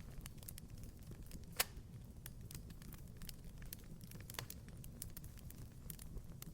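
Wood fire crackling in a fireplace: scattered small crackles over a low steady rumble, with one sharp pop about a second and a half in and a smaller one a few seconds later.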